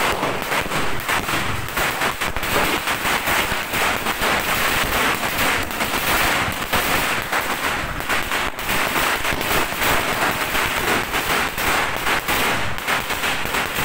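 A long string of firecrackers bursting, the bangs coming so fast they run together into a continuous crackling rattle.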